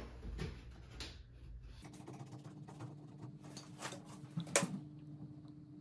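Scattered light clicks and knocks of handling, with one sharper knock about four and a half seconds in, over a faint steady hum.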